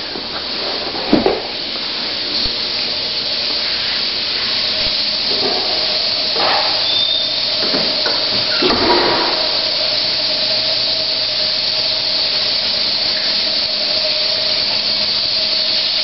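Steady hissing air noise with a faint steady hum, gradually getting a little louder, broken by a few brief knocks about a second in, around six seconds and around nine seconds.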